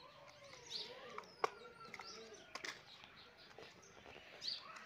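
A few sharp clicks and knocks of plastic toy vehicles being handled on concrete, the loudest about a second and a half in, over faint wavering cries.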